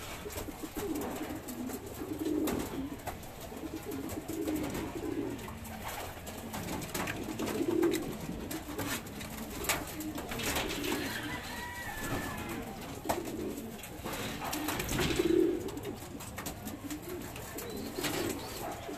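Racing pigeons in a wooden loft cooing, low coos repeated every couple of seconds, with a few light knocks among them.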